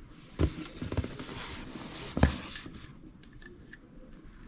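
Hand tools and small metal hardware being handled during the bike's assembly: scraping and rattling with two sharp knocks, one about half a second in and a louder one a little past the middle.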